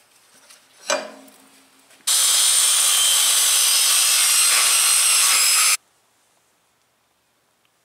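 Handheld circular saw cutting across a pine board for about three and a half seconds, a loud even whine-and-rasp that starts and stops abruptly. A short knock comes about a second in, before the cut.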